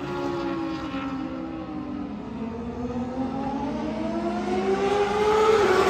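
Superbike racing engines at high revs on the circuit. The engine note falls and fades over the first two seconds, then climbs steadily and grows louder for about three seconds, with a brief drop in pitch near the end.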